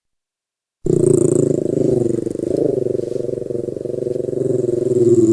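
A Lhasa Apso growling: one long, continuous low growl that starts abruptly about a second in, its pitch wavering.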